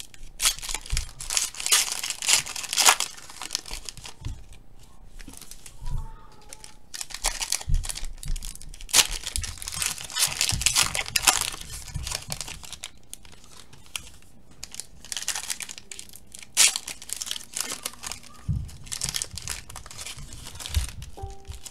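Foil trading card pack wrappers crinkling and tearing as they are ripped open by hand and the cards pulled out, in irregular bursts of rustling with short pauses between.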